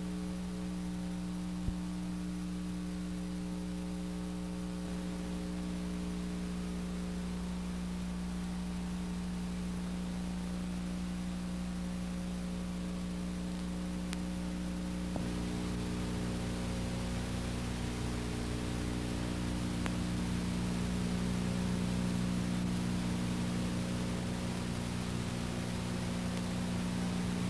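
Steady electrical mains hum over hiss on the blank audio track of an old videotape, with a single faint click about two seconds in.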